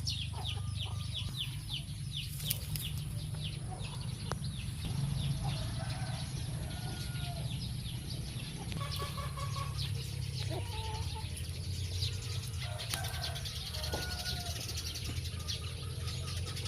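Birds chirping and calling: a quick run of short falling chirps in the first couple of seconds, then scattered short calls, over a steady low rumble.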